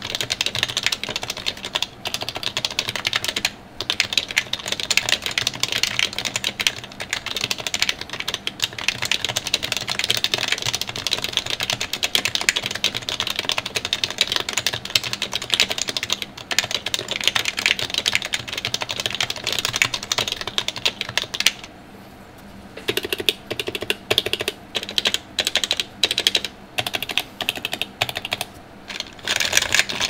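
HHKB Pro2 keyboard with stock Topre switches and stock keycaps being typed on quickly, a dense, even stream of keystrokes. About three-quarters of the way through, the typing thins to separate keystrokes with short pauses, then speeds up again near the end.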